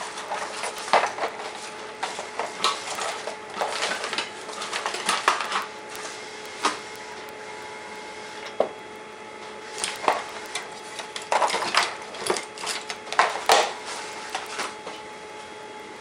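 Metal hand tools and small parts clinking and clattering as someone rummages through them looking for a tool, in irregular bunches with a short lull in the middle.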